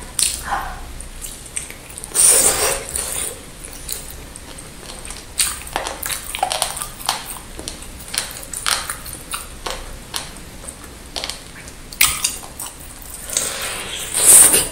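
Close-miked eating sounds: chewing and biting into a large meatball and rib meat, with the odd clink of a fork on the plate. Louder bites come about two seconds in and near the end.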